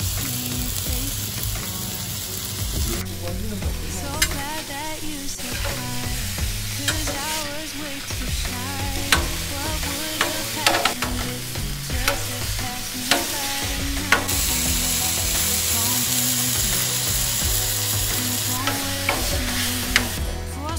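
Chicken breasts and onions sizzling on a hot stainless-steel flat-top griddle, with a metal spatula scraping the plate and tapping it sharply now and then as the pieces are turned and moved.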